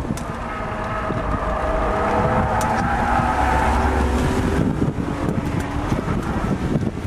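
BMW E36 M3's straight-six engine heard from inside the cabin under hard driving: the engine note climbs and grows louder, then drops away about four and a half seconds in, over road and wind noise.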